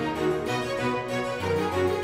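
Background music with a harpsichord-like keyboard playing over a steady bass line.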